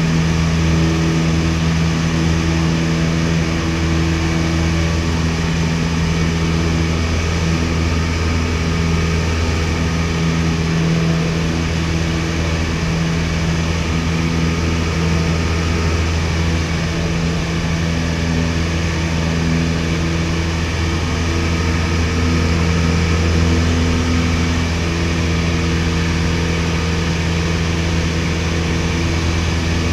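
Piper PA-22-108 Colt's four-cylinder Lycoming O-235 engine and propeller at takeoff power, heard from inside the cabin. It runs steadily through the takeoff roll, lift-off and climb-out.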